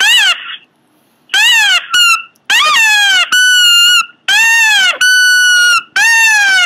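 Pomeranian giving a series of about seven high-pitched squeals, one after another. Each lasts about half a second, and many rise and then fall in pitch.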